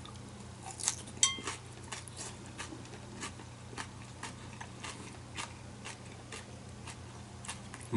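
Someone chewing crunchy goby nanbanzuke with crisp vegetables: irregular short crunches, with one ringing clink of tableware about a second in.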